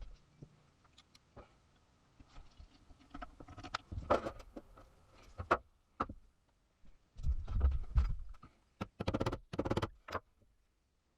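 Irregular clicks, scrapes and knocks of objects being handled, busiest about four seconds in and again between seven and ten seconds in.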